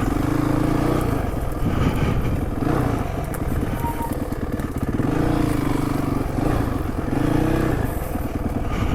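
Honda CRF450 dirt bike's single-cylinder four-stroke engine being ridden, the throttle opened and closed so the revs swell and drop back every couple of seconds.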